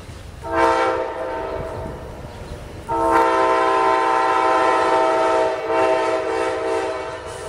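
Amtrak locomotive air horn sounding two blasts as the train approaches the station: a shorter blast about half a second in, then a long steady blast from about three seconds in that stops just before the end.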